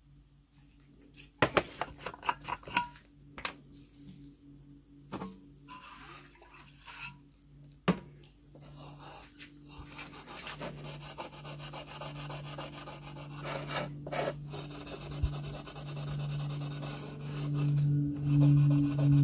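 Scattered clicks and knocks of handling in the first few seconds. Then, from about eight seconds in, continuous scrubbing of steel wool against the enamelled steel ring of a kerosene stove, growing louder near the end.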